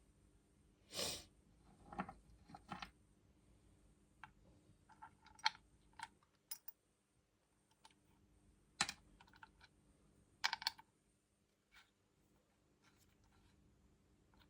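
Small parts of a motorcycle fuel petcock being handled: scattered light clicks and taps, with a short rubbing noise about a second in.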